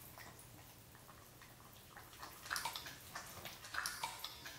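Shiba Inu lapping seltzer water from a glass bowl and smacking its lips: soft wet clicks, louder in two short spells about halfway through and near the end.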